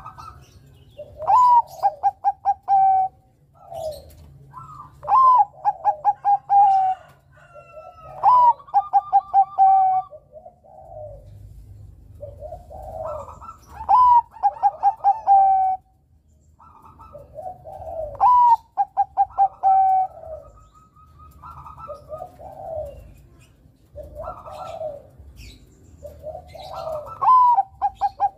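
Zebra dove (Bangkok-strain perkutut) singing: about seven loud phrases a few seconds apart, each a rising opening note followed by a quick run of short repeated coos. Softer, lower coos come between the phrases.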